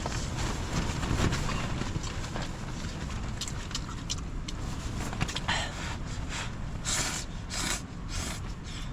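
Strong gale-force wind buffeting the microphone, a steady rumbling rush that rises and falls with the gusts, with a few short bursts of hiss near the end.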